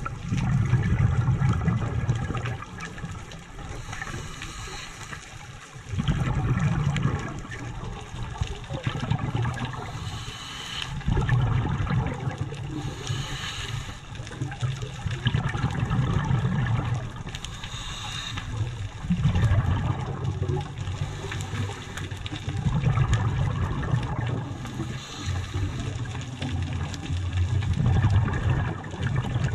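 A scuba diver's exhaled bubbles rumbling and gurgling, recorded underwater, in surges about every four to five seconds, with short regulator hisses between them.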